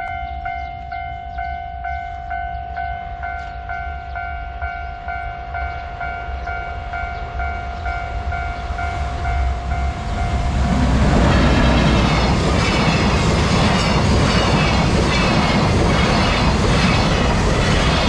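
Japanese level-crossing warning bell ringing in a steady, even pulse while a container freight train hauled by an EF210 electric locomotive approaches. About eleven seconds in the train reaches the crossing and its loud rumble and rhythmic wheel clatter over the rails take over as the container wagons pass.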